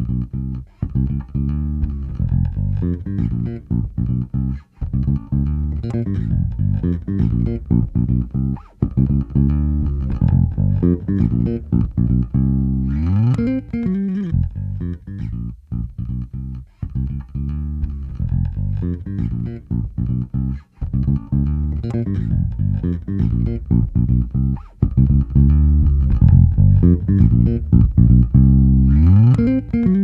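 Electric bass guitar played through a TC Electronic BAM200 bass amp head: a line of low plucked notes, with a slide up in pitch about 13 seconds in and again near the end.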